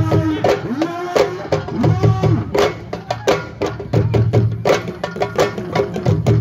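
Lively drum music: quick, sharp hand-drum strokes with a gliding melody line over them.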